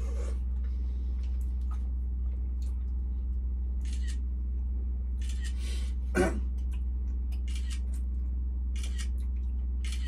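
Eating at a table: short scrapes and rustles of a fork against foil food wrappers, over a steady low hum, with one sharper knock about six seconds in.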